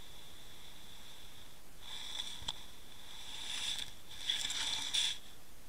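Sound picked up by a camera submerged on a river bed: a steady high whine, with three short spells of hissing noise and a few sharp clicks about two, three and a half and four and a half seconds in.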